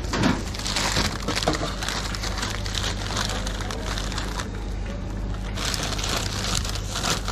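Sheet of deli paper crinkling and rustling, with tortilla chips crackling, as a plastic-gloved hand folds it around a pile of nachos and sets it into a plastic basket. It is an uneven run of crackles, over a steady low hum.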